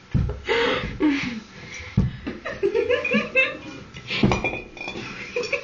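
Young women laughing and giggling in short bursts, with a few dull bumps.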